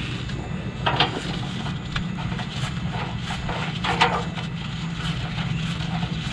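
Hand tools knocking and clicking on metal while a new oxygen sensor is fitted into the exhaust. There are two louder knocks, about a second in and about four seconds in, with lighter ticks between them, over a steady low hum.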